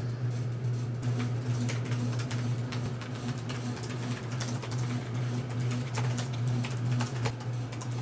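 Typing on a computer keyboard: irregular key clicks, a few a second, over a steady low hum.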